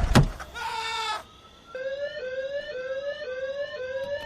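A loud sudden thud right at the start, then a short wavering tone. About a second and a half in, an electronic alarm starts, its rising chirps repeating about twice a second.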